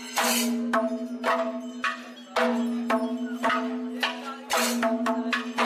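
Background music: a steady held drone under sharp percussion strikes about twice a second, the strokes coming quicker near the end.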